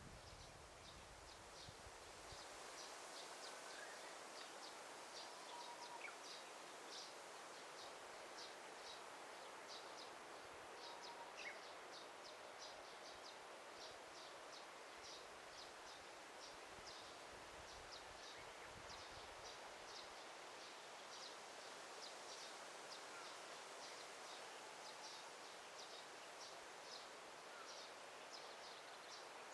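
Faint forest ambience: a soft steady rustling hiss, with short high chirps repeating about twice a second and a few faint bird whistles.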